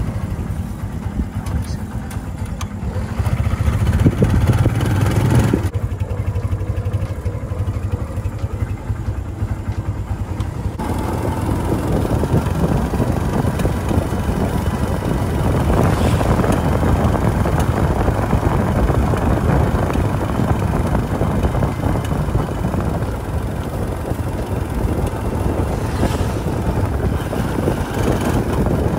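Tricycle's motorcycle engine running on the move, with road and wind noise. The sound changes abruptly about six and eleven seconds in, and is heavier and noisier from there on.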